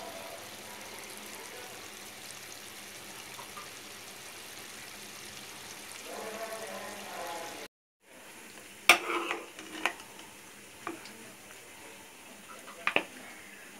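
Mutton curry sizzling and bubbling in the pan, a steady hiss. It breaks off briefly, then a metal spatula scrapes and clinks against the pan several times as the curry is scooped out.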